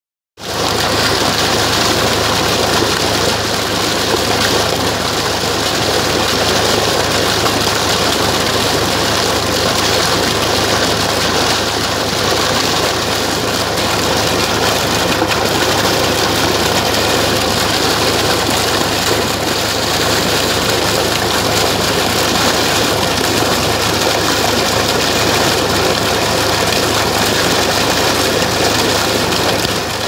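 Water falling over rocks into a pool at close range: a loud, steady rush of splashing.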